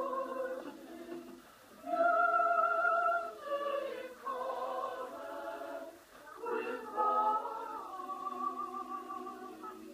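A choir of mostly women's voices singing long held notes, with two short breaths between phrases, about a second and a half in and again about six seconds in. It is played back through a television's speaker, so it sounds thin, with no bass.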